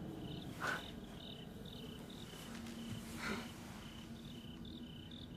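Crickets chirping in a steady, pulsed high trill, with two brief soft noises, one about a second in and one past the middle.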